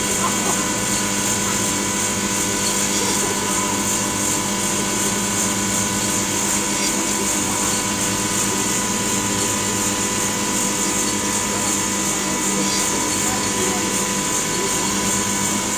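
A steady machine drone: an even hum made of several fixed tones over a high hiss, with no change in pitch or level.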